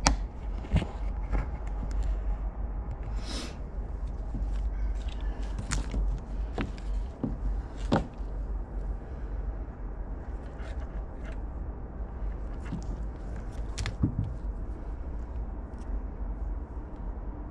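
Hands handling and sorting the loose wires of a motorcycle ATV wiring harness on a workbench, with scattered clicks and knocks over a steady low hum.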